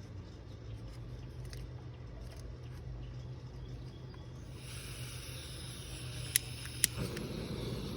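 A fire being lit to boil water: two sharp clicks about six and a half and seven seconds in, then a steady rushing noise starts, over a low steady hum.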